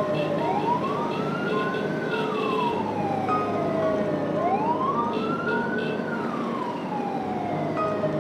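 Emergency vehicle siren in a slow wail, sweeping up and down in pitch about every four seconds: a quicker rise, then a longer fall. Steady traffic and engine noise runs underneath.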